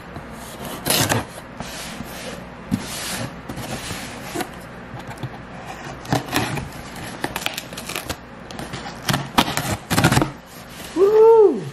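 Folding pocket knife slitting packing tape on a cardboard box: irregular scrapes, tape ripping and cardboard rustling. Near the end comes a short squeak that rises and falls in pitch.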